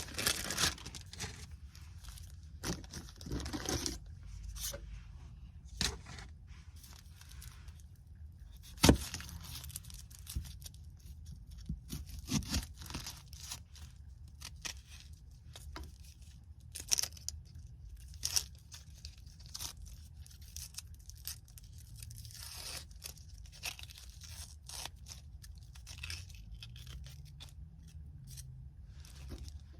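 A red onion being peeled and cut up with a knife: papery skin tearing and crinkling, and scattered knife knocks on a board, the loudest about nine seconds in. A low steady hum runs underneath.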